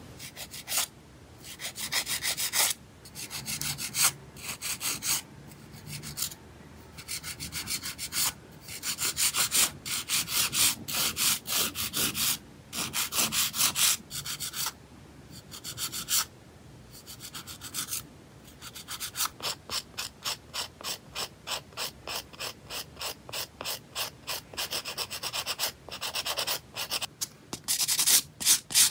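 Hand nail file rasping back and forth over long polygel extension nails to shape their edges and sides, in runs of quick strokes with short pauses between them. Near the end it gives way to a sanding block buffing the nails, with louder, even strokes.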